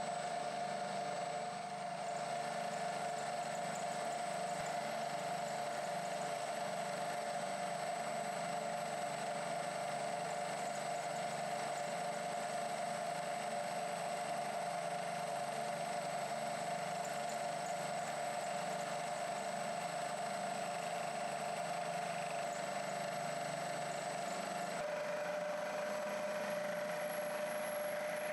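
Bridgeport milling machine running, its spiral end mill cutting the side of a metal block. It makes a steady whine whose pitch steps down slightly about 25 seconds in.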